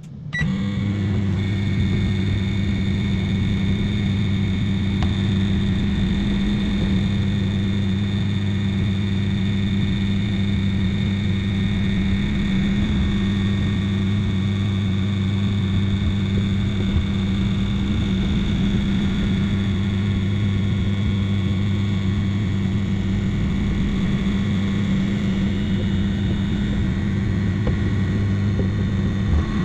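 Microwave oven running: a steady, deep electrical hum that starts right at the beginning and holds level.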